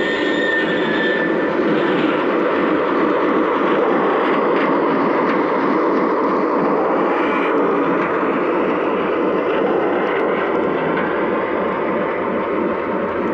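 Lionel Legacy O gauge diesel locomotive running past close by, its onboard sound system playing a steady diesel engine rumble over the rolling noise of the wheels on three-rail track.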